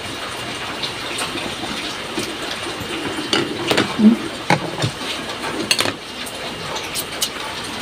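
Eating close to the microphone: chewing of noodles and food, with a run of sharp clicks from utensils against a plate a few seconds in, over a steady background hiss.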